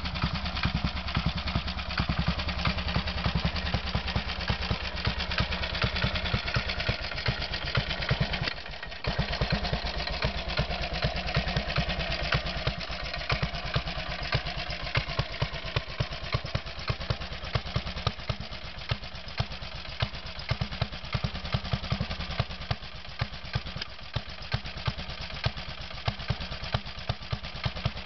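1954 Royal Enfield Bullet 500 trials motorcycle's single-cylinder four-stroke engine idling with a steady, even beat, with a short break about a third of the way in.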